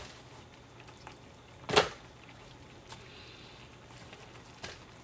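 Fried chicken pieces being put back into a pan of orange sauce: scattered light knocks against the pan, with one loud clack almost two seconds in, over a faint steady hum.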